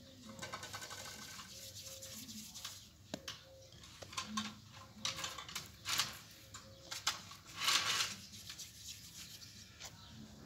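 Hands shaping and stretching soft, floured bread dough: light pats and rubbing of dough between the palms, with a couple of louder brushing sounds near the middle and about two-thirds through.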